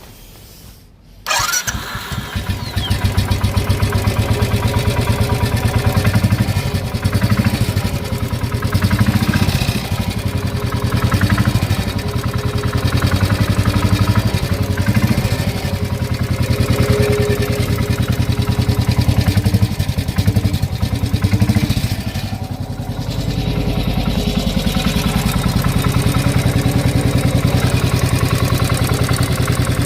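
A 2016 Royal Enfield Bullet's single-cylinder engine starts about a second in and runs with a rapid, even beat, which the owner records as an engine knock. The revs swell and drop repeatedly, then settle to a steady idle about three quarters of the way through.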